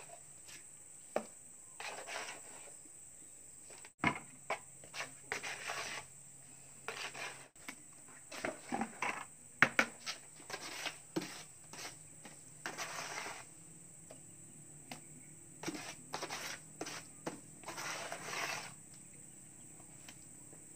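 Small metal trowel scraping and scooping wet cement mortar in plastic buckets: irregular short scrapes with a few sharp clinks and pauses between them.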